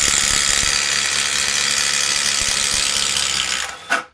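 Milwaukee M12 Fuel second-generation impact driver (2553-20) hammering under heavy load as it bores a 7/8-inch three-flute self-feed bit through a wooden board. It stops near the end, then gives one brief further burst.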